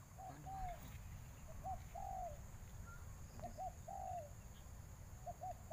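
Spotted dove cooing: a phrase of two short notes and a longer arched coo, repeated four times about every second and three quarters, faint over a low rumble.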